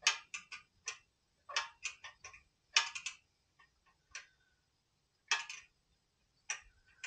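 Hand tools clicking and clinking against the log splitter's small-engine carburettor and governor linkage while it is being adjusted: a dozen or so sharp clicks, single or in small clusters, at uneven intervals.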